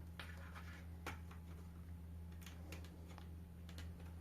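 Faint clicks and light handling ticks as a USB charging cable is unplugged and plugged into a computer's USB port, over a steady low electrical hum.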